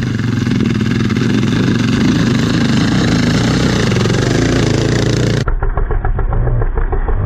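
Off-road dirt bike engines revving hard, with one bike passing close by. About five and a half seconds in, the sound turns duller and choppier with rapid pulsing.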